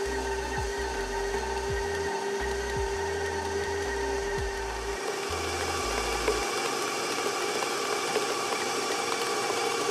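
Electric tilt-head stand mixer running steadily, its flat beater churning butter, sugar and peanut butter in a stainless steel bowl: creaming the cookie dough base until light and fluffy. The motor's tone shifts about halfway through.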